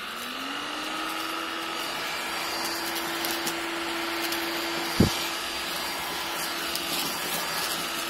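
Cordless stick vacuum cleaner on its first (lowest) speed, its motor spinning up to a steady hum and whine in the first second. It then runs steadily while vacuuming cereal flakes off a carpet, with a single sharp click about five seconds in.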